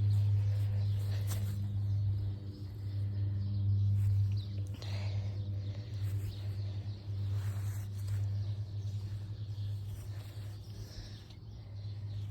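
A steady low hum, with a rider's heavy breathing on top: a few soft breaths, clearest about five seconds in and again a couple of seconds later.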